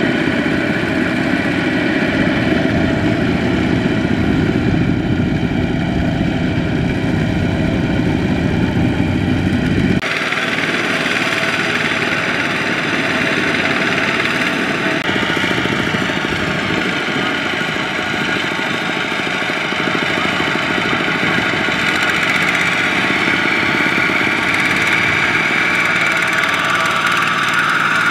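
Single-cylinder diesel engine of a two-wheel power tiller running steadily under load as it pulls a loaded trailer through mud. The sound changes suddenly about ten seconds in, with less low rumble and more high-pitched engine noise after the change.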